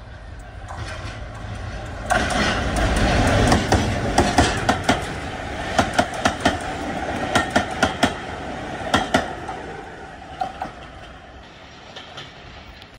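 Class 17 diesel locomotive D8568 passing close at speed with a train of coaches: the sound comes in suddenly about two seconds in, then the coach wheels clack over rail joints in quick runs of beats, fading as the train draws away.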